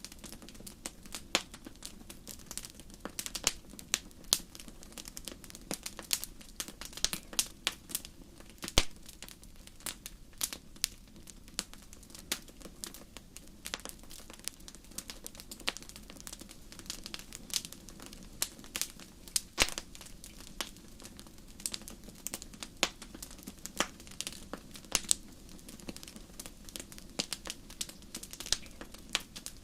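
Wood fire in a fireplace crackling: many sharp irregular pops and snaps over a soft steady rush of burning.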